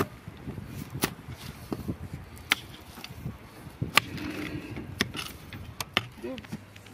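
A shovel and a mattock digging into earth and stones, about seven sharp strikes at irregular intervals.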